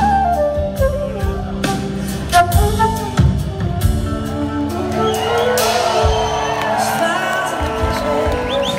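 Live rock band playing an instrumental passage, electric guitar over drums, heard from the audience with the echo of a large hall.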